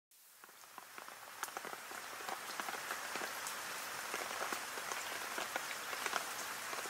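Rain falling, with scattered louder drops, fading in over the first two seconds and then steady: a rain ambience used as the intro of the song.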